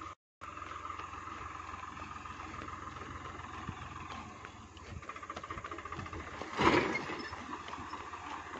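Tractor's diesel engine running steadily at a distance, with an even low chug. About two-thirds of the way in there is a brief louder rush of noise.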